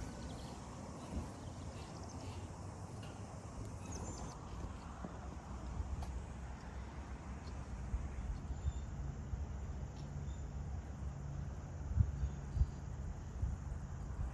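Footsteps thudding on a wooden suspended walkway over a low, steady rumbling noise, with the two heaviest thuds about twelve seconds in.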